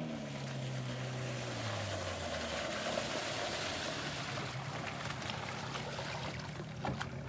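Small Yamaha outboard motor on an inflatable dinghy running at speed as it passes by, its pitch falling over the first couple of seconds. After that, the hiss of spray and wake from the hull runs on with the engine fainter underneath.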